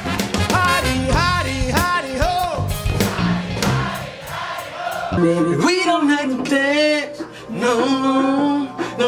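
A man singing with a band, with bass and drums behind him; about five seconds in the bass and drums fall away and the singing carries on over lighter backing.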